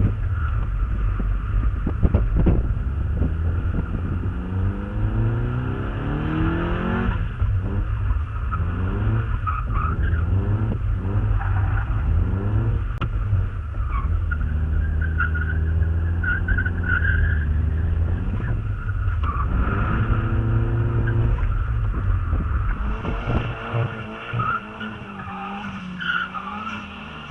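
Mazda MX-5 Miata engine revving up and falling back again and again while the tyres squeal in a drift. Near the end the engine eases off and the sound gets quieter.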